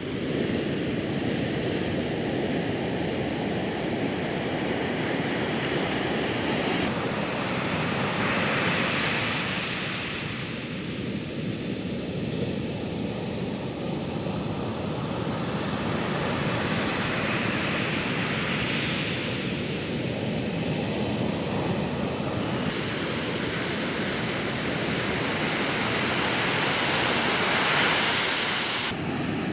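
Rough sea surf: a steady rumble of waves breaking and washing up a sandy beach, with a wave swelling louder and crashing about every nine or ten seconds.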